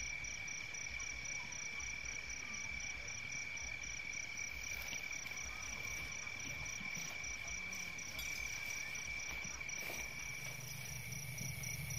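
Night chorus of crickets and other insects: one high, steady trill running on unbroken, with a higher, evenly pulsing trill over it.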